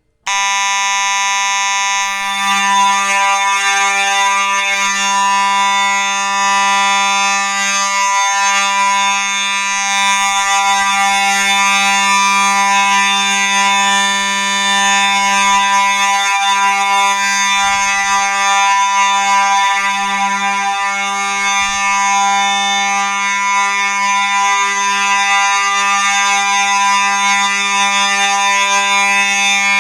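Fire alarm horn sounding on a continuous signal: one steady, unbroken buzzing tone that starts abruptly and is extremely loud.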